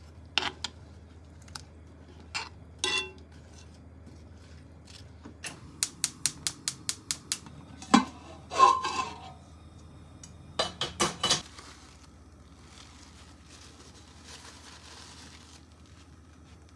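Metal spoon clinking against cooking pots: a few taps in a cast-iron pot, a quick run of light ticks, then a loud clank of a stainless steel pot and its lid with a brief ring, more clinks, and soft scraping near the end.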